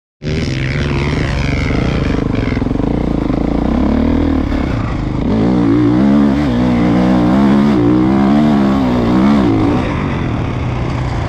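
Kawasaki motocross bike's engine running while ridden, its pitch rising and falling over and over for several seconds in the middle as the throttle is worked.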